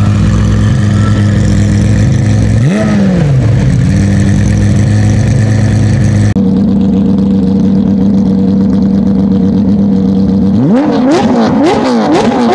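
Porsche 997 GT3 rally car's 3.6-litre flat-six idling steadily, with one throttle blip rising and falling about three seconds in. Then another GT3 idles, and near the end it gives a quick series of sharp throttle blips.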